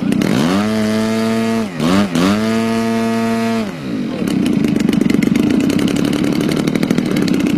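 Small gasoline two-stroke engine of an RC model airplane, throttled up twice. Each time the pitch climbs, holds high for about a second, then drops back, and the engine then runs on rougher at low throttle.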